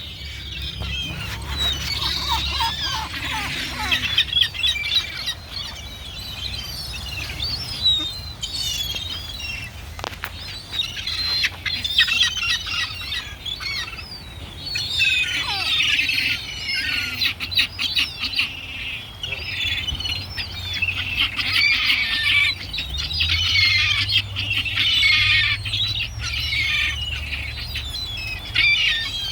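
A flock of small wild birds chirping and calling busily, many short calls overlapping, with scattered sharp clicks and a steady low rumble underneath.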